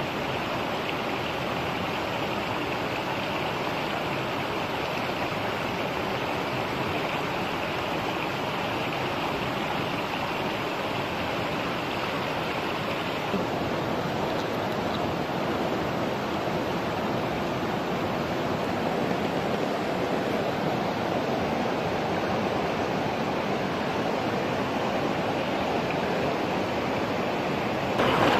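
Fast-flowing stream rushing and churning over rocks, a steady noise of moving water that jumps louder just before the end.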